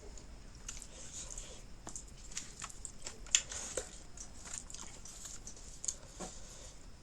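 Close-miked eating sounds: a person chewing and smacking with scattered small clicks, and one sharper click a little over three seconds in.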